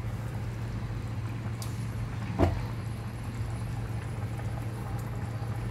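A braise of lamb shanks in tomato and red-wine sauce simmering in an enamelled pot, over a steady low hum, with one sharp knock about two and a half seconds in.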